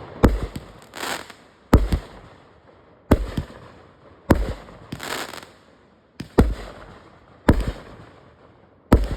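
Firework going off: seven sharp bangs, about one every second and a bit. Some of the bangs are followed about half a second later by a short hissing burst.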